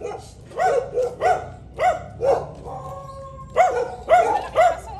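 Small dachshund barking at another dog in a string of short, high-pitched yaps, about two a second, pausing for about a second halfway through before starting again.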